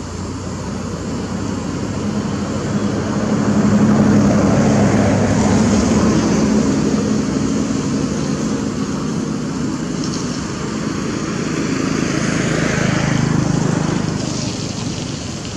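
Engine noise from a passing motor vehicle, a low steady drone that swells about four seconds in and again near the end.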